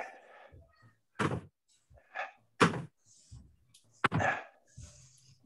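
Feet landing on a rug over a wooden floor during jump squats: several dull thuds, roughly one every second and a half, with hard breathing in between.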